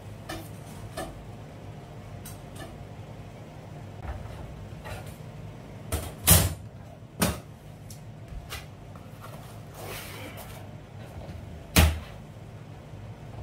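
Hand tools and boards being picked up and set down on a vinyl-tile floor: a few sharp knocks and clacks, the loudest about six seconds in and another near the end, with lighter clicks between.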